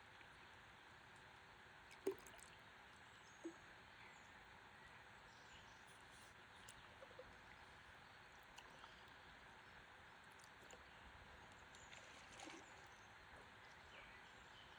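Near silence: faint, steady outdoor river ambience from the paddleboard, with a few small clicks of water, the sharpest about two seconds in and another about a second and a half later.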